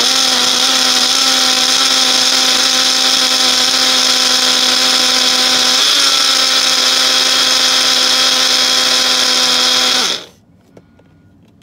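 Personal single-serve cup blender running at full speed, blending frozen peach pieces and protein powder into a shake: a loud, steady motor whine that dips slightly about six seconds in and cuts off about ten seconds in.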